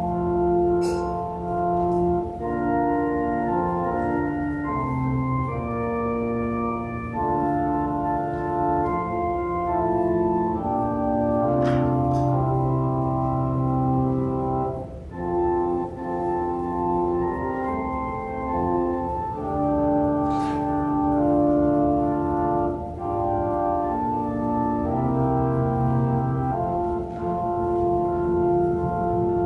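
Organ playing slow, sustained chords, the harmony changing every second or two.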